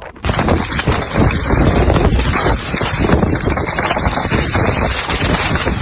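Strong gusty wind buffeting the microphone: a loud, rough rumble that surges and eases irregularly.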